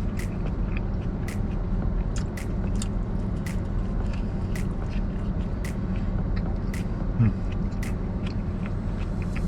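A person chewing a bite of a pita sandwich, with soft clicks a little over once a second, over a steady low rumble. There is a short rising hum about seven seconds in.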